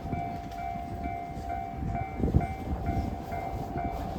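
An electronic warning bell ringing in a steady repeating pattern about twice a second, over the low rumble and knocks of a diesel-hauled train arriving. The bell cuts off right at the end.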